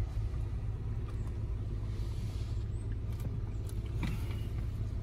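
Vehicle engine idling, a steady low hum heard from inside the cabin, with a few faint clicks or rustles a few seconds in.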